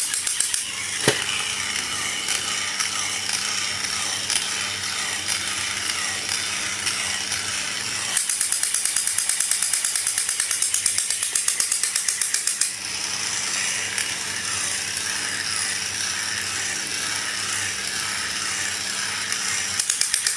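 Fast mechanical ratcheting clicks over a steady rustling hiss. A long, even run of rapid clicks comes in the middle, and another starts near the end.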